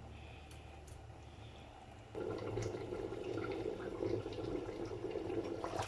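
Pot of palm nut soup bubbling on the boil, turning suddenly louder about two seconds in.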